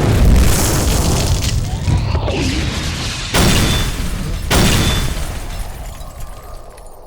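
Explosion sound effects: a loud boom at the start and two more about three and a half and four and a half seconds in, each with a deep rumble that dies away toward the end.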